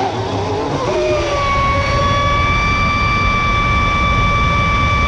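Pro Boat Impulse 31 electric RC speedboat at full throttle on a 6S battery, heard from on board. Its brushless motor whines at a high pitch that settles and holds steady after about a second, over a constant hiss of water spray from the rooster tail.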